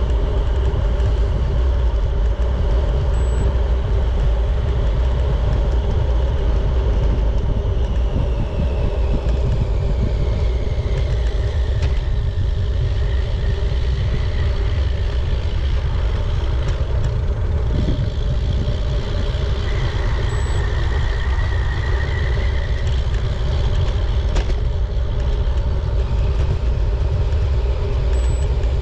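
Steady, loud rumble of wind and road noise on the microphone while riding, with a constant hum over it. A faint whistling tone slides down in pitch about eight to twelve seconds in.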